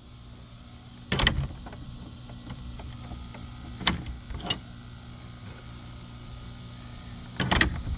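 Metal clanks of a spring-loaded gate latch being worked by hand: a sharp clack about a second in, two lighter knocks around four seconds, and another clack near the end, over a steady low hum.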